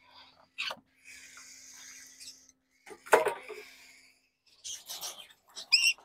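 Knocks and rattles of wire bird cages and their cups being handled, the loudest knock about three seconds in, with short bird chirps near the end.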